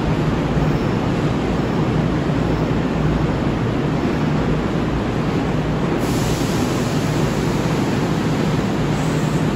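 Kintetsu 5200 series electric train rolling slowly along an underground station platform as it comes in to stop, a steady low rumble of wheels and running gear. A faint high hiss comes in about six seconds in.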